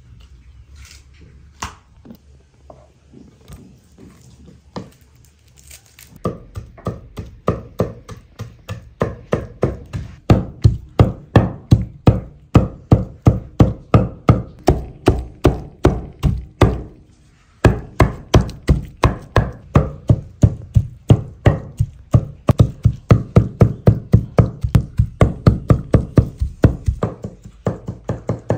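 Knife chopping on a wooden cutting board in a steady rhythm of about three strokes a second, starting about six seconds in, with a short pause midway.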